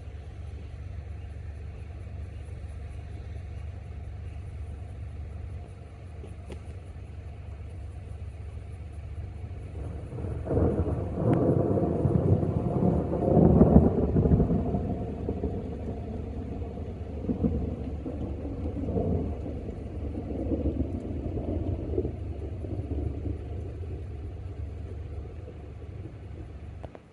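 A car driving past on the road, swelling in from about ten seconds in, loudest a few seconds later and fading away slowly, over a steady low rumble.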